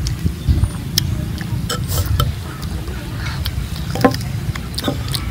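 Eating sounds: a spoon scraping and tapping against fruit, and bites into firm fruit, heard as scattered small clicks and taps, with a sharper tap about four seconds in. A steady low rumble sits underneath.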